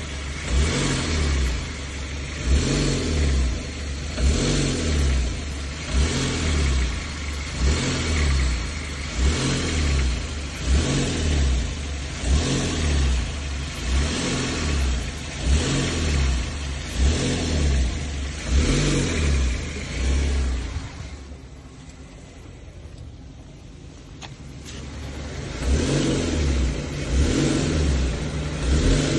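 Kia Stonic EX+ engine, about 3,000 km old, revved in short repeated blips roughly every one and a half seconds, settling back to a quieter idle for a few seconds after the middle before the blips resume. The owner says this brand-new engine has a knocking problem.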